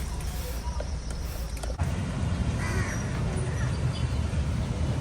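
A single short bird call, with a caw-like ring, about two and a half seconds in, over a steady low rumble.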